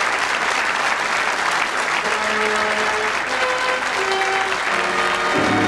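Audience applauding steadily. About two seconds in, music of long held notes starts under the clapping, and a pulsing low bass comes in near the end.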